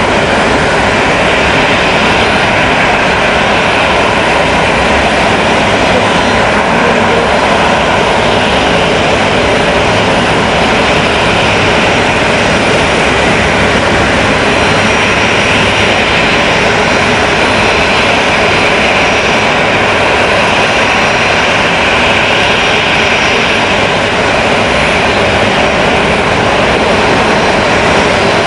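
De Havilland Canada Dash 8's twin Pratt & Whitney Canada PW100-series turboprop engines running at taxi power, a loud steady rush of engine and propeller noise with a faint high turbine whine over it.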